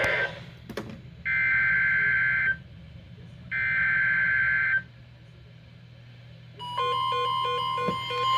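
EAS SAME header: three buzzing data bursts of about a second each, separated by short gaps. After a brief pause, the steady 1050 Hz NOAA Weather Radio warning alarm tone starts, with a fast pulsing beep over it. Together they announce a new severe thunderstorm warning.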